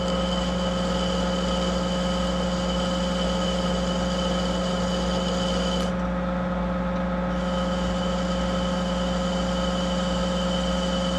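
Monarch 10EE lathe running steadily under a light cut in hard pre-hard steel, a constant hum with a steady whine over it. A high tone drops out about six seconds in and returns over a second later.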